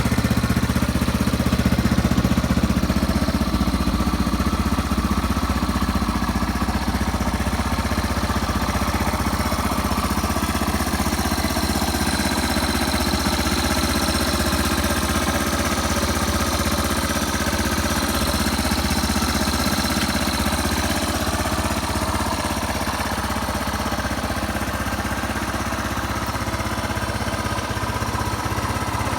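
Yamaha Serow 225's air-cooled single-cylinder four-stroke engine idling steadily, a little louder for the first couple of seconds. It runs evenly with no abnormal noises, which the seller presents as a sign of good condition.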